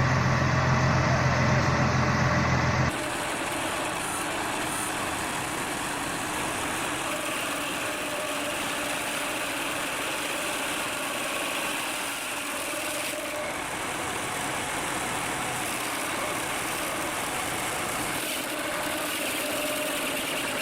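Heavy machinery engine running steadily. About three seconds in, a loud low hum cuts off abruptly and gives way to a quieter, steady machine noise.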